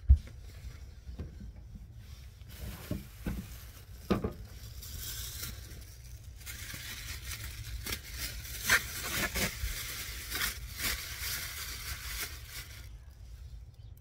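A sharp thump, then a thin plastic bag rustling and crinkling unevenly for about ten seconds with small clicks of handling, dying away near the end.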